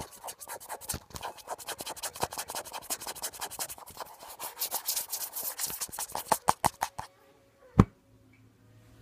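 Close scratching and rubbing against bedding fabric, many quick irregular strokes for about seven seconds. Then a single sharp thump near the end.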